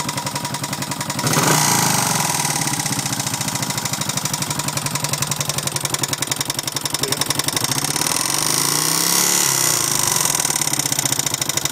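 1972 Honda CB350 parallel-twin engine running with a loud, rapid clicking in time with the engine, blipped up about a second in and revved up and back down again near nine seconds. The owner suspects a rocker or a noisy valve in the top end on the right side.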